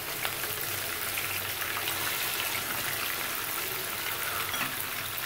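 Sliced onions sizzling steadily in hot oil in a frying pan, an even frying hiss.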